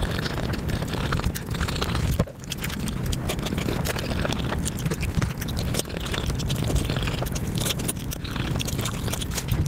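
Close-miked mouth sounds of a person chewing and biting food, played back at five times normal speed, so the chews run together into a dense stream of rapid clicks over a low rumble.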